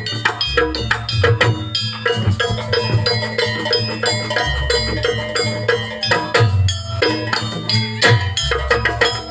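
Live traditional percussion music for a pencak silat Garuda dance: a fast, dense run of drum strokes and ringing pitched metal tones over a low, sustained bass.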